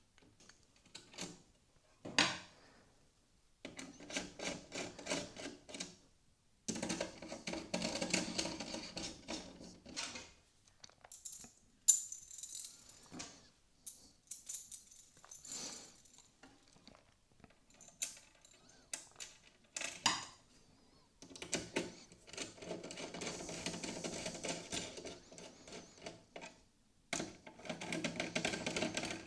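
Irregular clicks, taps and rattling of computer parts and small hardware being handled, with several longer stretches of dense rattling that start and stop abruptly.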